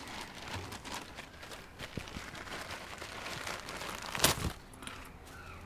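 Handling noise of people carrying and setting down equipment: rustling, footsteps and light knocks, with one loud knock or clatter about four seconds in.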